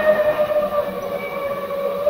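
FPV drone's motors and propellers whining steadily, heard through the camera on board, the pitch sagging slightly in the middle.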